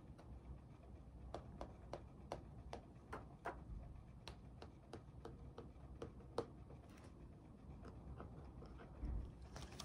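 Faint, irregular ticks and taps of a pen writing on the pages of a workbook at a desk, with soft handling of the book's paper.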